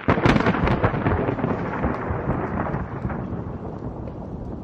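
A thunderclap over steady rain: a sudden sharp crack with crackling at the start, then a rumble that slowly fades while the rain hisses on underneath.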